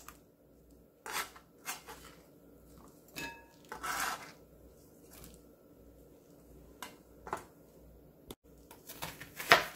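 Sliced cucumber pieces being slid off a kitchen knife blade and cutting board into a glass mixing bowl: scattered soft knocks, scrapes and light clinks of the knife and vegetable against the board and glass, the loudest one near the end.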